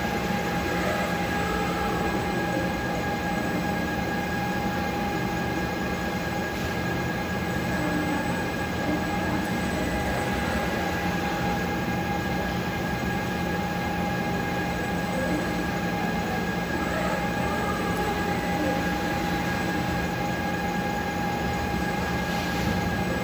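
Concrete 3D printing machinery running steadily: a constant mechanical drone with a steady whine over it.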